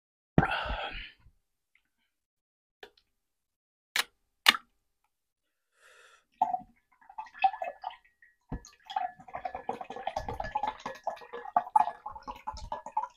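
Pineapple juice poured from a bottle into a drinking glass, gurgling and splashing steadily for the last six or so seconds. A short loud clatter comes about half a second in, and two sharp clicks about four seconds in.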